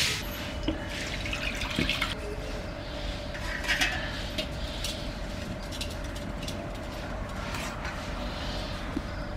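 Liquid sloshing and splashing as a metal ladle stirs a thick fish-head soup in a pan, with a faint steady hum underneath.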